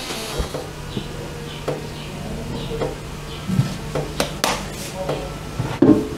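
Background music with a steady low tone and short notes, broken by a few light knocks and clicks, the loudest near the end.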